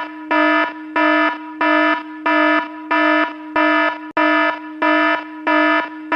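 Harsh electronic warning alarm sounding in a steady repeating pattern, a buzzing tone that pulses louder about three times every two seconds over a constant underlying hum at the same pitch.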